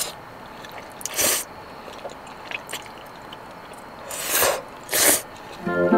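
Udon noodles being slurped off a fork, three quick slurps about a second in and around four and five seconds in, with a few light clicks between. Background music starts just before the end.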